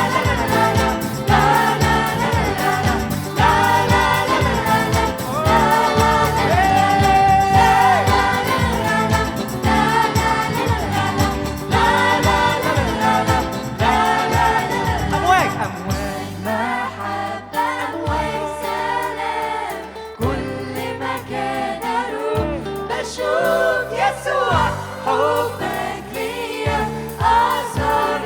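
Arabic Christian children's song: singing voices over a band backing with a steady beat. The backing thins out about halfway through.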